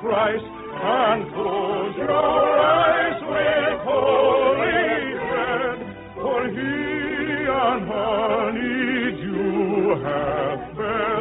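Operatic singing with strong vibrato over musical accompaniment, in sustained phrases with brief breaths between them. The old radio-broadcast recording sounds muffled, with no high treble.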